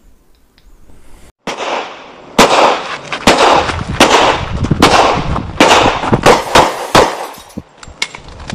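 Gunshot sound effects: a string of single shots at uneven spacing, each trailing off in a long echo, starting after a near-quiet first second or so.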